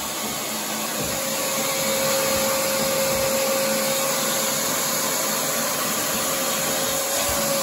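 Wet/dry shop vacuum running steadily as its hose nozzle is worked over a boat's plywood floor to suck up wood chips and debris; a steady whine comes in about a second in.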